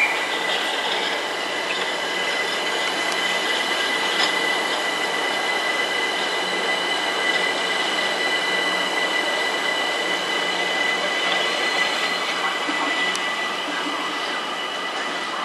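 Electric passenger train running through a station: a continuous rumble with a steady high-pitched whine.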